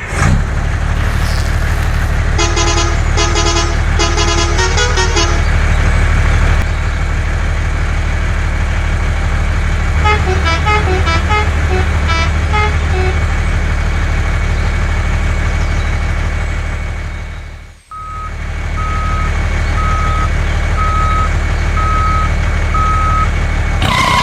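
Truck engine running steadily, with a musical horn playing short tunes twice. After a brief cut-out, a reversing alarm sounds about six evenly spaced beeps near the end.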